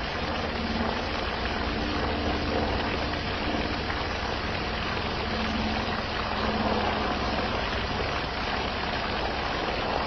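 Water gushing steadily out of a hose through an egg-shaped nozzle fitting, a constant even rush with a faint low hum under it.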